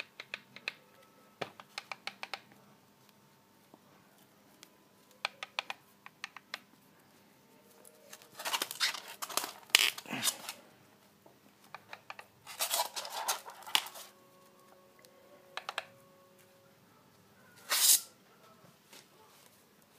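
Light metallic clicks and scrapes of hands handling a two-stroke jet ski engine's crankshaft in its crankcase half. There are two longer spells of clustered clicking and rubbing in the middle and one short, louder scrape near the end.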